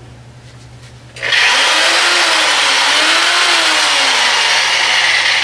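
Electric power tool switched on about a second in and running steadily under mains power from the system's inverter, a loud motor and air noise with a faint hum that wavers slightly in pitch.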